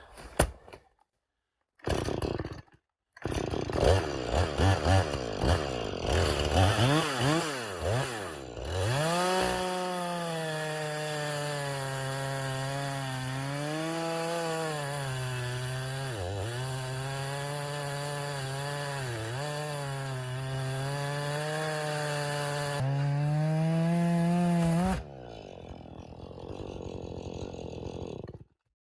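Gas chainsaw bucking a felled tree trunk: several seconds of uneven revving, then a long steady run at high revs under load, the pitch sagging briefly a few times as the chain bites into the wood. The revs climb and then drop away as the cut ends, leaving a lower, quieter noise.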